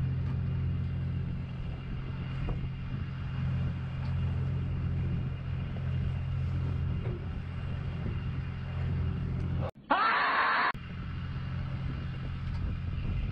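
Steady low drone of a fishing boat's engine running. About ten seconds in it cuts out for roughly a second under a loud hiss, then comes back.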